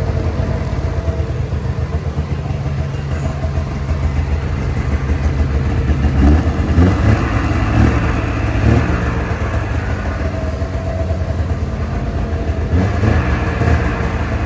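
1997 Ski-Doo Formula 500 snowmobile's two-stroke twin engine running at idle, revved up briefly four times about six to nine seconds in and once more near the end.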